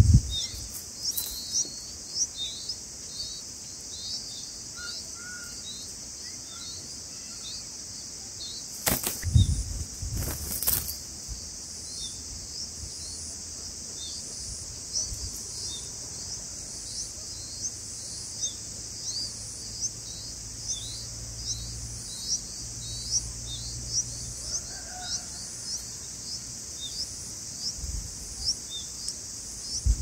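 Red-vented bulbul nestlings begging with short, high, rising chirps, about one or two a second, over a steady high insect hiss. A few brief loud bursts of the adult's wings flapping sound at the start and about nine and ten seconds in.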